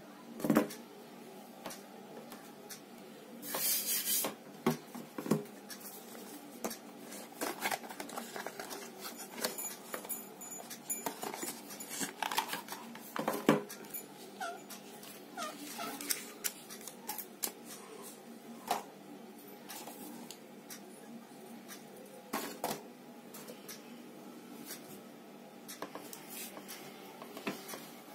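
Handling noises of a smartphone unboxing on a wooden table: scattered knocks and clicks as the phone, its cardboard box and a plastic case are picked up and set down, with a short burst of rustling packaging a few seconds in.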